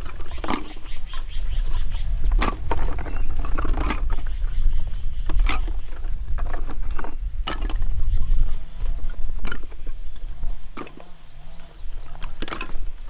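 Woody cassava stem cuttings knocking and clattering as they are picked up and dropped by handfuls into a woven basket, sharp irregular knocks every second or two over a steady low rumble.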